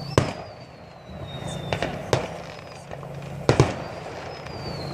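Fireworks bursting: sharp bangs about a fifth of a second in, two close together near two seconds, and a quick pair at about three and a half seconds. Over the first second and a half a high whistle slides down in pitch, and another starts near four seconds. A steady low hum runs underneath.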